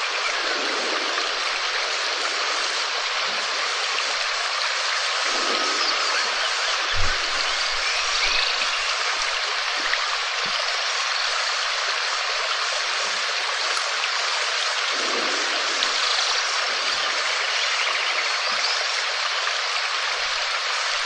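Steady rain falling, an even hiss, with a few soft knocks of heavier drops, the loudest about seven seconds in.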